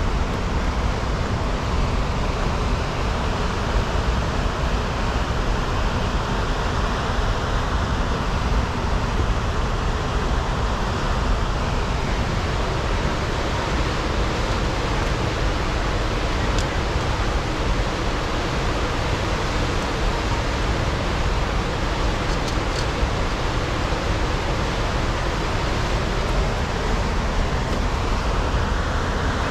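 Fast river running over rocky rapids: a steady, unbroken rush of water.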